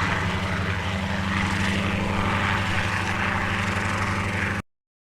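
Helicopter running steadily, a rapid rotor chop over a low engine hum, cutting off suddenly near the end.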